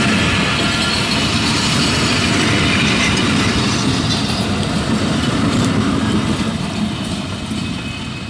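Passenger train coaches rolling past close by, a loud steady rumble of wheels running on the rails, fading over the last couple of seconds as the last coach moves away.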